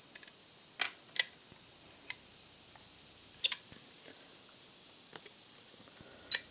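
Light clicks and knocks of a small cast-metal updraft carburetor and its parts being handled on a wooden workbench as the carburetor body is worked apart at its gasket. There are a handful of separate clicks, the sharpest about a second in, again at three and a half seconds, and near the end.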